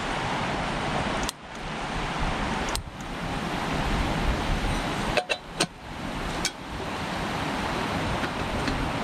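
Steady rush of a creek, with a handful of sharp clicks and clinks as a small canister camp stove is worked by hand and a metal kettle is set on it.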